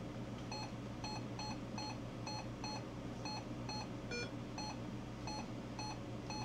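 Retevis RT95 mobile radio's key beeps: an uneven string of short double blips, about two to three a second, as it is stepped through channels, with one different, higher beep about four seconds in. A low steady hum lies underneath.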